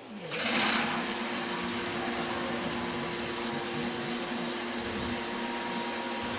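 Flood coolant starts spraying from the nozzles of a CNC mill's coolant ring about a third of a second in and keeps rushing steadily onto the drill bit, over a steady machine hum.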